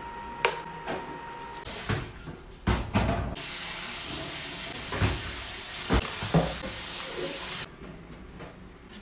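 Kitchen food-prep sounds: a few sharp knocks of utensils against dishes, then a steady hiss for about four seconds with a few thumps in it, which stops abruptly near the end.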